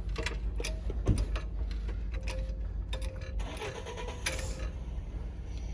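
Car jack being cranked with a hammer used in place of the missing jack bar: irregular mechanical clicks and ticks, with a short squeak about four seconds in, over a steady low rumble.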